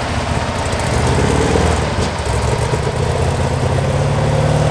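Super stock pulling tractor's diesel engine running at low speed as the tractor rolls off the track after its pull. The note is steady and low.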